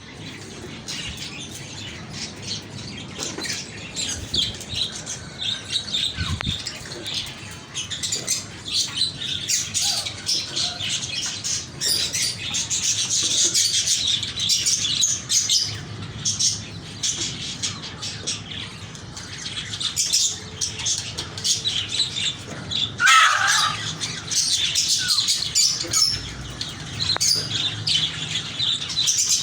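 Budgerigars chattering and chirping continuously in high, busy warbles, with one louder, lower squawk about three quarters of the way through.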